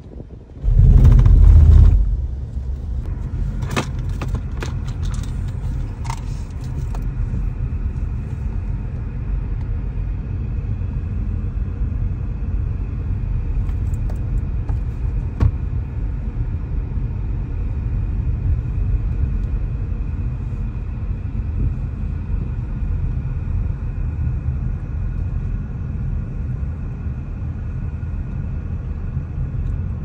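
A car driving, heard from inside the cabin: a steady low road and engine rumble. About a second in there is a loud, low buffeting thud lasting about a second, and a few light clicks follow over the next few seconds.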